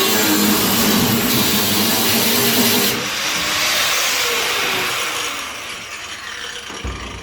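Angle grinder cutting into car body steel, loud for about three seconds; then it is lifted off and released and winds down, its whine falling in pitch as the disc slows.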